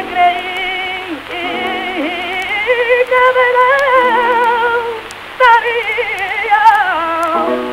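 Flamenco cante on an early recording: a singer holds long, wavering melismatic notes with heavy vibrato over a steady accompaniment, with faint surface crackle.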